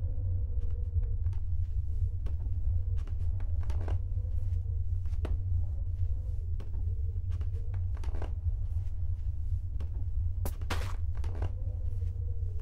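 Scattered clicks, taps and rustling of objects being handled and rummaged through on a table, over a steady low rumble. There is a louder cluster of clicks about ten seconds in.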